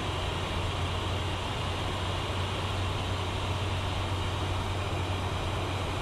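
Steady cockpit noise of a Learjet 60XR business jet in flight on descent: an even rush of airflow with a constant low hum underneath.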